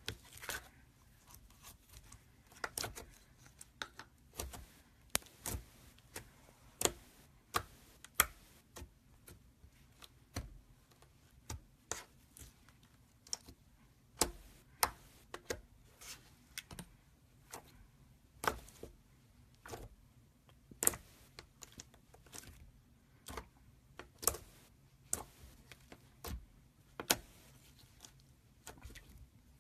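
Glossy slime being poked and pressed by fingertips, making irregular sharp clicks and pops, about one to two a second.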